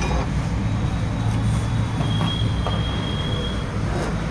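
Steady low rumble of road traffic, with a faint thin high whine for a second or two about halfway through.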